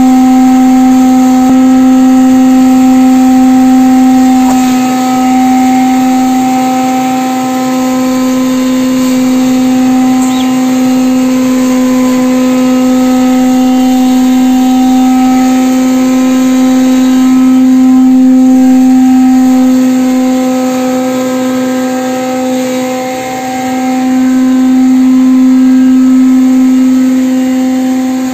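Electric spice pulverizer grinding dried red chillies, running at full speed with a loud, steady hum at one strong pitch and its overtones.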